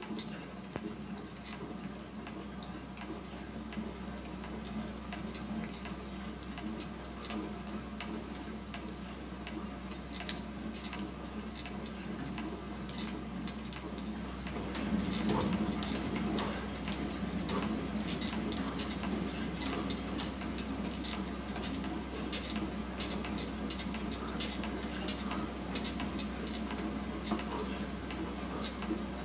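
Scattered light clicks and clinks over a steady low hum, a little louder from about halfway through.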